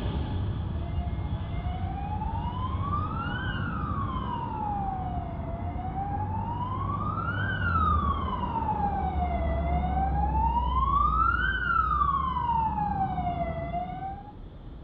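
An emergency-vehicle siren wailing, its pitch rising and falling slowly, about four seconds per cycle, over the low rumble of jet engines. The siren stops at a cut near the end.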